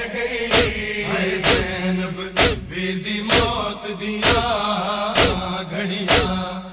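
A male chorus chanting a noha in long held notes, over a steady beat of hands striking chests (matam) about once a second.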